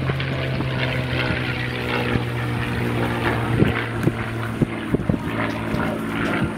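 Airplane flying past overhead, its engine a steady drone with several pitched tones, the deepest tone fading after about four seconds.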